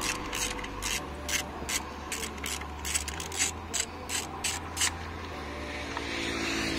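Hand ratchet clicking as it is swung back and forth, loosening the 8 mm bolts of a diesel engine's rocker cover. Regular clicks, about three a second, stop about five seconds in.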